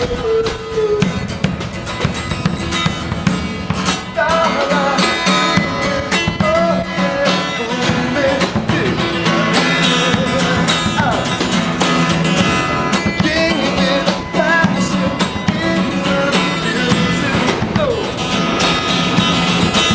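Live street music: a strummed guitar with steady percussion and a singing voice carrying a gliding melody.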